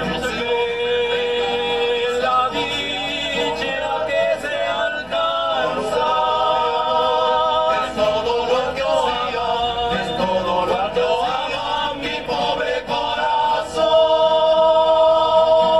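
A rondalla, a group of male voices singing together in harmony over strummed acoustic guitars, with long held notes; a louder sustained chord comes in near the end.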